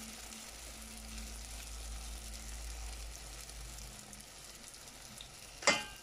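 A khfaf (sfenj) doughnut frying in hot oil in a small stainless saucepan: a steady sizzle as oil is spooned over it with a wooden spoon. A sharp knock near the end, the wooden spoon striking the pan, is the loudest sound.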